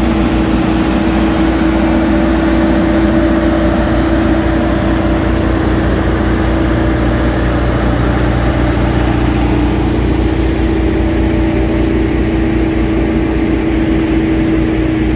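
Bobcat telehandler's diesel engine running steadily while its hydraulic telescopic boom lifts a pallet of concrete blocks, with a constant tone sitting over the engine noise.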